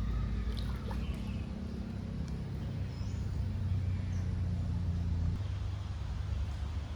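A low, steady engine drone, like a motor vehicle running, which drops away and changes about five seconds in. A few faint high chirps sound over it in the first half.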